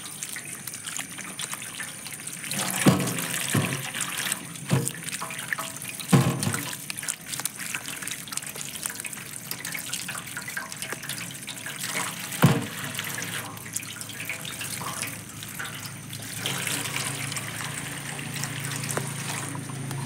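Water running from a tap and splashing onto a stone slab as cucumbers are washed by hand under it, with a few sharp knocks.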